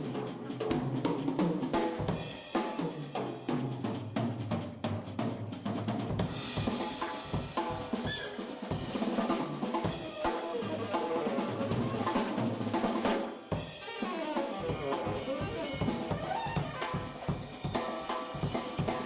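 Live jazz-funk band music with the drum kit to the fore: busy snare, bass drum and rimshot strokes, with the band's pitched instruments underneath.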